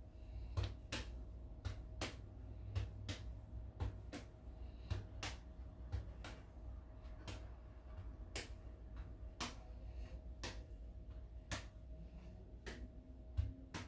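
Sharp, uneven clicks of a juggling ball landing in the hands and bouncing off the neck and shoulder, about one to two a second, over a steady low hum.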